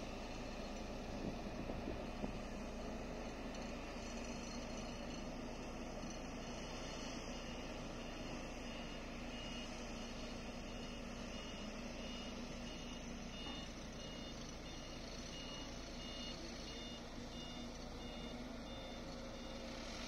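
A heavy-equipment reversing alarm beeping in a steady repeating pattern, starting a few seconds in, over the steady running of diesel engines on a dump truck and a padfoot compactor roller.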